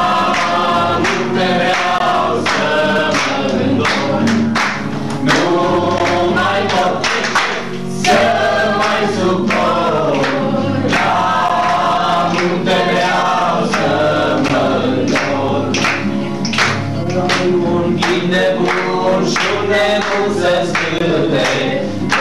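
A group of voices singing a song together, accompanied by an acoustic guitar strummed in a steady rhythm.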